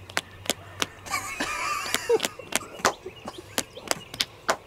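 Fists smacking down into open palms in a quick, steady rhythm, about three sharp slaps a second, as two people play rock-paper-scissors. A brief voice sounds about a second in.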